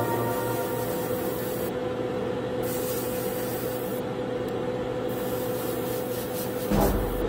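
Airbrush spraying surfacer primer, a steady hiss that stops twice for about a second and starts again, over a faint steady hum. A low rumble and a few clicks come in near the end.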